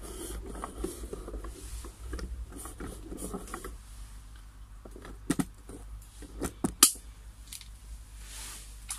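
Handling noise on a pond liner: the sheet rustles and creaks as someone shifts about on it, with a few sharp clicks or knocks about halfway through.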